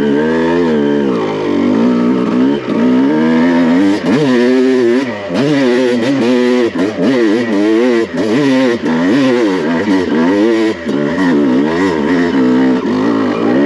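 2001 Honda CR250's single-cylinder two-stroke engine revving up and down over and over, about once or twice a second, as the clutch is slipped to keep it on the pipe on a steep hill climb in second gear.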